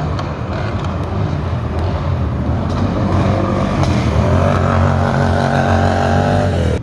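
A motor vehicle engine running loudly over a steady low rumble, revving up from about halfway through with its pitch climbing and then held high.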